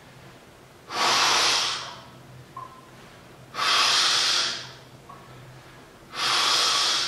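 A man breathing hard and forcefully while curling a heavy barbell: three loud, hissing breaths about a second long, one every two and a half seconds or so, each timed with a repetition under heavy strain.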